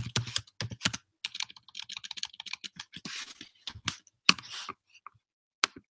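Typing on a computer keyboard: quick, irregular key clicks that thin out to a few scattered taps near the end.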